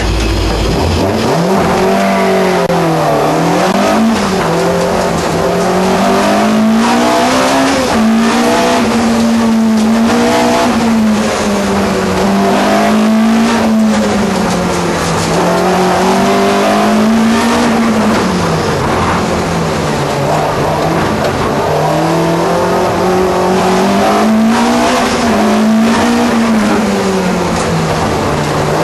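Slalom racing car's engine heard from inside the cabin, revving up and dropping back again and again as it accelerates and lifts through a timed run. Its pitch rises and falls in repeated swings.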